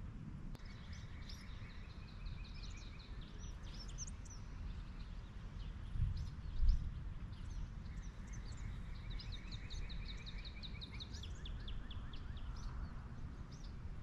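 Songbirds singing outdoors: several trills and fast runs of repeated chirps, one long run through the second half, over a steady low rumble. Two short low thumps about six seconds in are the loudest sounds.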